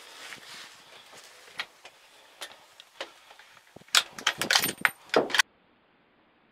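Close clicks and rattles of gear being handled near the microphone, scattered at first and then a loud clattering run for about a second and a half, cutting off abruptly.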